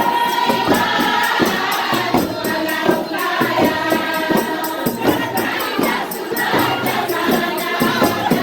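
Voices singing together in chorus over a steady beat of hand percussion with jingles.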